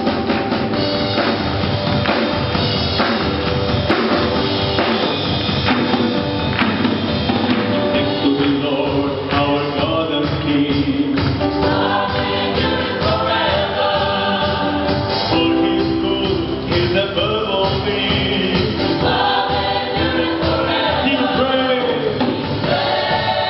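Mixed gospel choir singing live with a band, over a steady drum beat.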